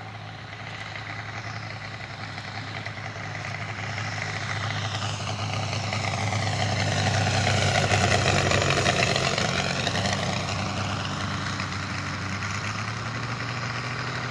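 Valach 420cc five-cylinder radial engine of a half-scale radio-controlled Klemm Kl 25 running steadily during a low flypast. It grows louder to a peak about eight seconds in, then fades as the plane passes.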